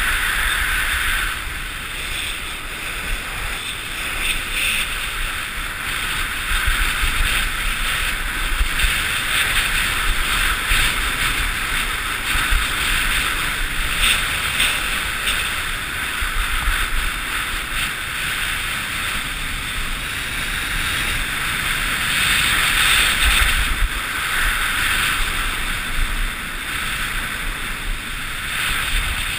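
Wind rushing over the microphone of a GoPro HD Hero and skis scraping on packed snow during a fast straight run, as the skier gathers speed to nearly 100 km/h. The scraping hiss comes and goes in waves over a steady low rumble of wind.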